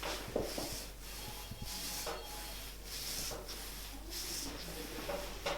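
Hands rubbing over a person's shoulders and back in a massage: a repeated swishing stroke, roughly once a second.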